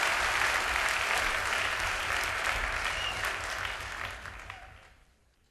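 Live concert audience applauding after a song, the applause fading out about a second before the end.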